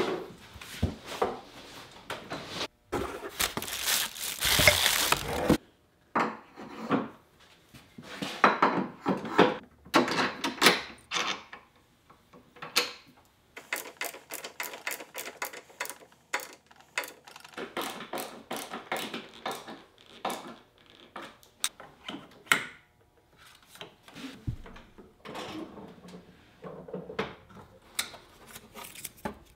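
Knocks, clicks and rubbing from a SawStop Jobsite table saw and its folding wheeled stand being lifted out of the box, screwed together and adjusted. There is a longer, louder stretch of noise about three to five seconds in.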